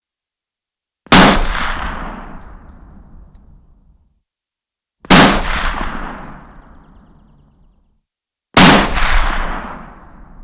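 Three rifle shots, about four and three and a half seconds apart, each a sharp crack followed by a long rolling echo that dies away over about three seconds.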